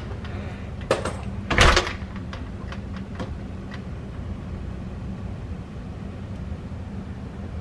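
A knock, then a louder thud like a door shutting about a second and a half in, followed by a few light ticks. A steady low mechanical hum runs underneath.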